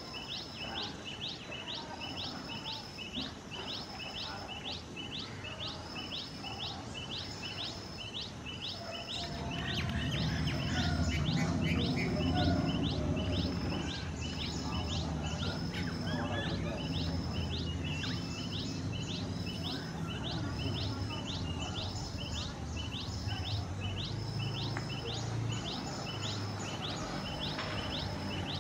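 A short high call repeated about once a second, each call stepping down from a higher note to a lower run, over steady outdoor background. A low rumble comes in about ten seconds in and continues.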